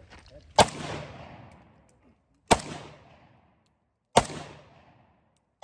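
Century Arms Draco AK-47 pistol in 7.62×39 fired in single shots: three loud reports about two seconds apart, each trailing off over about a second, with a fourth starting right at the end.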